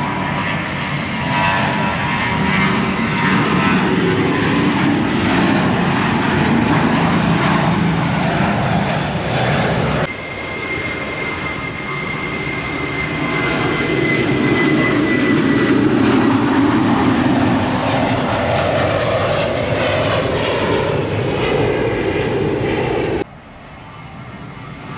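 Airliner engines running at high power on departure, a loud steady noise with a thin whine over it. It is heard in successive clips that change abruptly about ten seconds in and again near the end, where it drops to a quieter, more distant sound.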